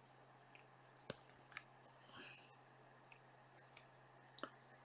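Near silence, broken by a few faint clicks as a plastic card holder is handled in the fingers: one about a second in, another soon after, and a quick pair near the end.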